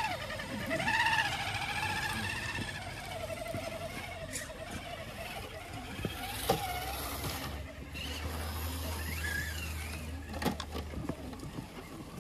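Electric motor and gearbox of a scale RC crawler truck whining, the pitch rising and falling with the throttle as it crawls along. Two sharp knocks, about six and a half and ten and a half seconds in.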